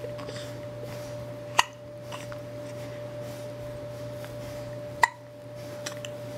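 A baby hiccupping twice, about three and a half seconds apart, each hiccup a short sharp catch. A steady low hum runs underneath.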